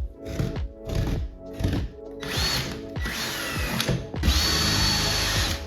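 Background music, then from about two seconds in a cordless drill-driver boring a hole, running in three bursts, the last about a second and a half long, with a high whine.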